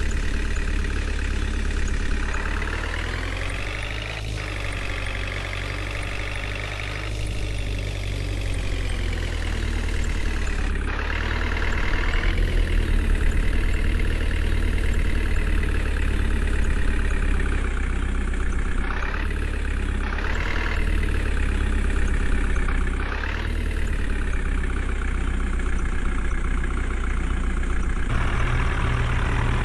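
JCB 3DX backhoe loader's diesel engine running as it works, its pitch rising and falling repeatedly as it is revved up and eased back.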